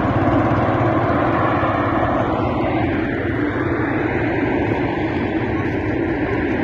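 Burning oil pipeline fire giving off a loud, steady rushing roar.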